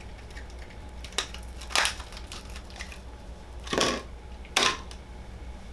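Hands handling plastic parts and packaging: four short crinkling clicks and rustles, the third one longer, over a steady low electrical hum.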